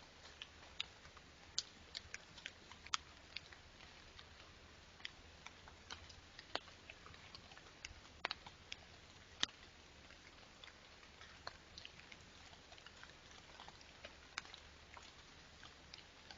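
Raindrops ticking irregularly on a hard surface close to the microphone, a few sharp drips a second over a faint steady hiss and low hum.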